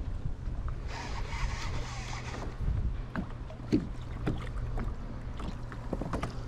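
Wind rumbling on the microphone, with scattered small clicks and a brief hiss about a second in.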